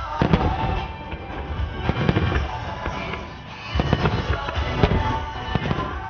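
Starmine fireworks going off in rapid succession, a series of booms and crackles, over music played with the display.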